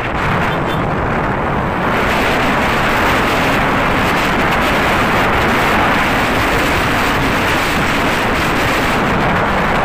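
Steady rush of wind and road noise on the microphone of a moving motorbike, getting louder about two seconds in.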